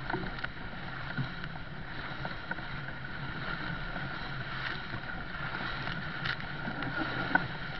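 Steady wind and water noise from a sailing yacht moving through choppy water, with a few light knocks.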